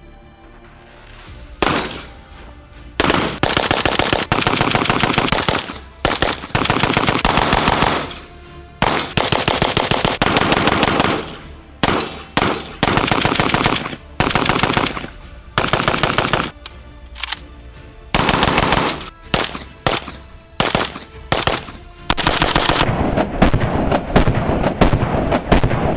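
Rapid strings of gunfire from a Rifle Dynamics RD-704M AK pistol, about a dozen strings of one to three seconds each with short pauses between them.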